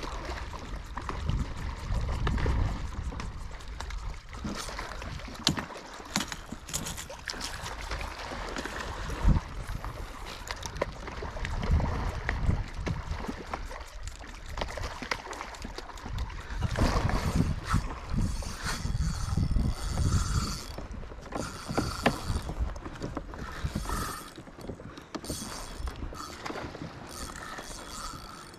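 Wind buffeting the microphone and water around a small fishing boat, with scattered clicks and knocks. In the second half the rumble thins out and lighter mechanical clicking comes through.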